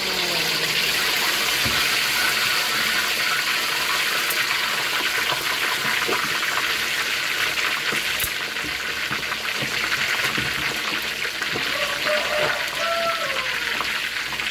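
Marinated duck pieces deep-frying in a wok of hot oil: loud, steady sizzling as the oil bubbles up hard around the freshly added meat.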